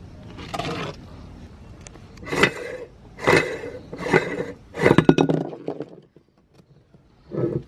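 Crunchy cookie cracking and crunching in a meat grinder, in a series of short crackly bursts about a second apart, with a brief pause near the end.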